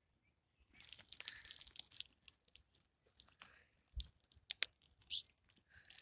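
Dry pine needles and twigs on the forest floor crunching and crackling. A dense run of crackles starts about a second in, followed later by a few separate sharp cracks.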